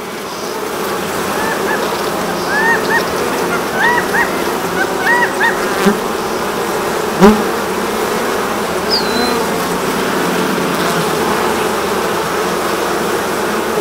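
A mass of honey bees on open hive frames humming steadily. A single sharp knock about seven seconds in, and a few short chirps between about two and six seconds in.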